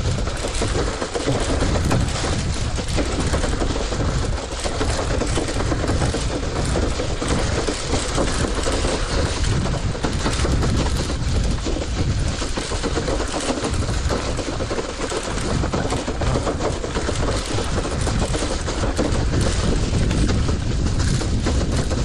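Rental city bicycle rattling over a bumpy dirt track, its wire front basket and frame clattering continuously over a low rumble. The rider calls the ride noisy.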